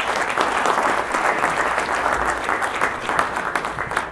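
Audience applauding: dense clapping from many hands in a hall.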